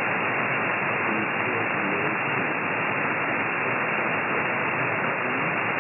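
Steady shortwave static hiss from a software-defined radio receiving in upper sideband on 13089 kHz, with no clear voice over the band noise.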